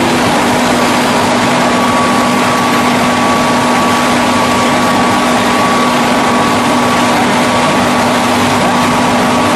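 Hydraulic single-spindle veneer lathe running steadily with a dense, continuous machine noise, a steady low hum and a fainter high whine held throughout.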